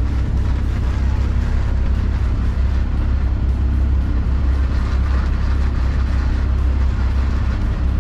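A sailboat's small engine running steadily at high revs, a constant low drone. It is pushed near its maximum to drive the heavily loaded boat at about 5 knots.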